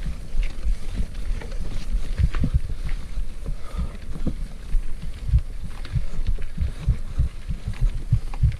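Irregular low thumps and knocks from a mountain bike rolling over a rocky dirt climb, the jolts carried through the bike to the GoPro, with a few light clicks from the bike and stones.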